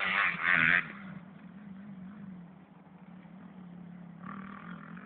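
Motocross dirt bike engines running on the track: loud revving for the first second, then a fainter drone that rises and falls in pitch, swelling again about four seconds in.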